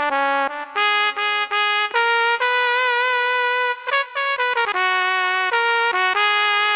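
Roland XPS-60 keyboard playing a solo melody on a trumpet-like wind tone. It moves in short separate notes, holds one long wavering note in the middle and makes a quick pitch bend about four seconds in.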